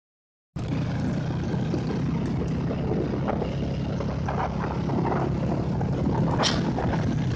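Motorcycle engine running with wind and road noise while riding in a convoy of motorcycles, starting suddenly about half a second in and holding steady.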